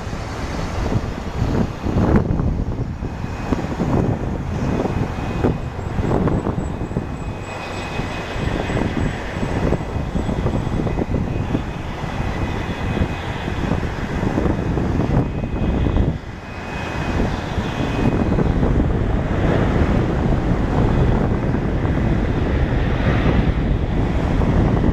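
CFM56 turbofan jet engines of an Airbus A319 coming in to land, a steady low rumble with a thin high whine over it.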